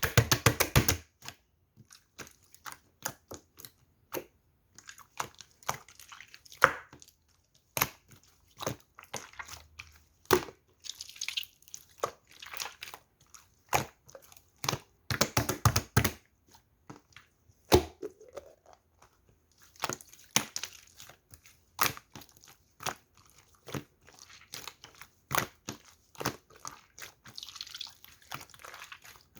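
Slime being pressed and kneaded by hand, giving an irregular run of small clicks and pops. There are dense crackling flurries right at the start and again about fifteen seconds in.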